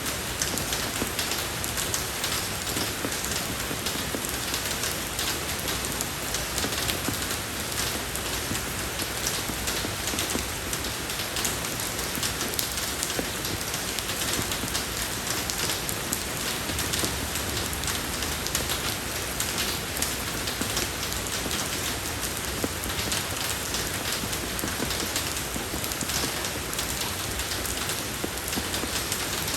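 Steady rain falling on a road, an even hiss thick with the patter of individual drops.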